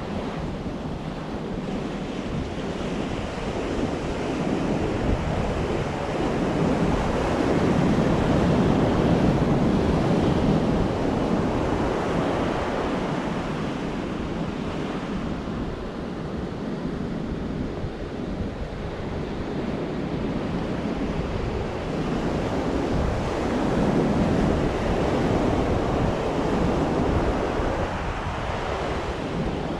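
Ocean surf washing onto the shore, rising in two long swells, with wind buffeting the microphone.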